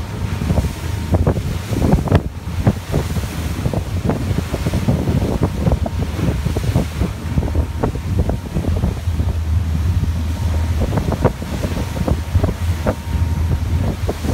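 Wind buffeting the microphone in gusts on a motor cruiser running over choppy sea, over the steady low drone of the boat's engine and water rushing past the hull.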